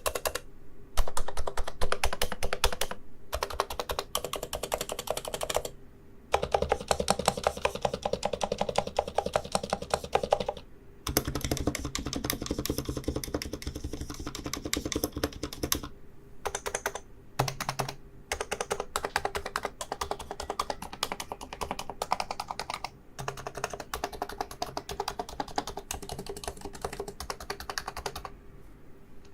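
Typing on a Realforce keyboard with Topre electro-capacitive switches: fast runs of keystrokes, broken every few seconds by short pauses.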